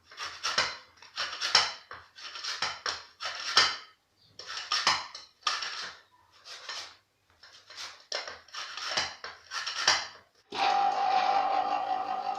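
Lemon peel being grated on a metal grater: a series of short rasping strokes, about one or two a second. About ten and a half seconds in, a small electric motor starts and runs with a steady hum.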